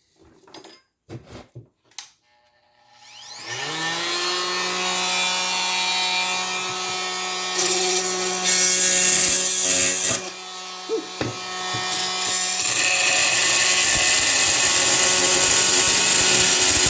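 A few handling clicks, then a Kobalt oscillating multi-tool on its lowest speed starts about three seconds in and runs with a steady buzz. Its wood/metal blade cuts into a metal fastener in a board, with a harsher grinding that comes in partway through and grows louder.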